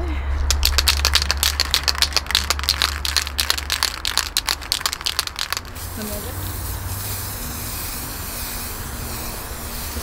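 Aerosol spray paint can shaken hard, its mixing ball rattling rapidly for about five and a half seconds, then a steady spraying hiss as paint goes onto a PVC pipe.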